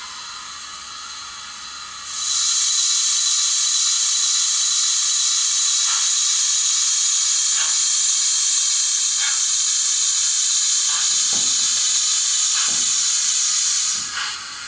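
Sound decoder in a Bachmann OO gauge Southern H2 Atlantic model locomotive playing a loud, steady steam hiss through its small speaker. The hiss starts about two seconds in and stops near the end, with a few faint ticks under it. It is part of the shut-down sequence after the sound is switched off.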